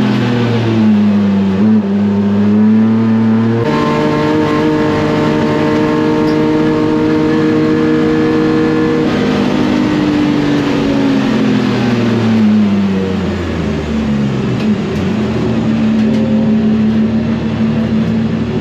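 BMW E36 race car's S54 inline-six engine running hard on track. Its pitch dips near the start, jumps abruptly about three and a half seconds in and holds steady, then falls over a few seconds around the middle before levelling off again.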